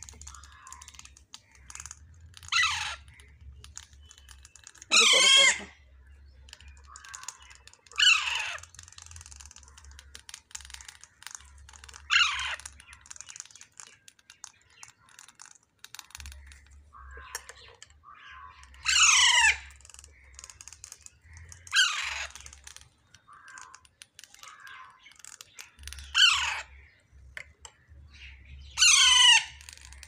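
Alexandrine parakeet chicks giving harsh begging cries while feeding from a cup, each call falling steeply in pitch, about eight calls a few seconds apart. Faint clicking between the calls.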